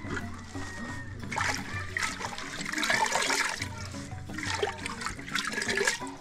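Water splashing and dripping in a metal pot as handfuls of ayoyo (jute mallow) leaves are washed and squeezed, in two spells, over background music.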